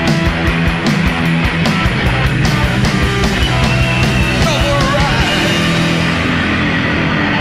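Loud punk-rock band music with a driving drum beat. The drum hits drop out about five seconds in, leaving a sustained wash of guitar.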